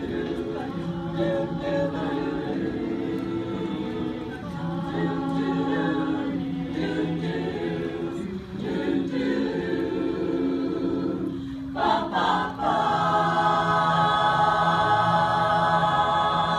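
Women's choir singing in harmony, breaking briefly about twelve seconds in and then swelling into a louder, long held chord.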